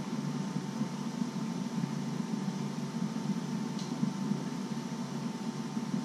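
Steady low hum and hiss of a running appliance, with a faint constant whine over it; one brief faint tick about four seconds in.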